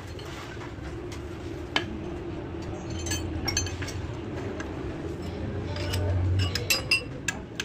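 Metal hand tools clinking and knocking as a mechanic handles wrenches and a long bar at a bare diesel engine, several sharp clinks with a short ring, bunched near the end, over a steady low hum.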